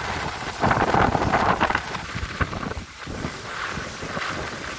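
Strong wind buffeting the microphone over choppy, wind-whipped lake water, with a louder gust about a second in.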